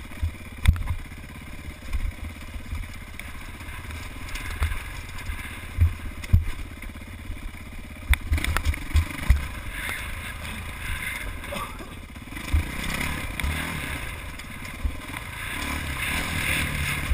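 Dirt bike engine running as the bike picks its way over rocks, with frequent sharp knocks and thumps as it jolts over them. The engine grows louder over the last few seconds.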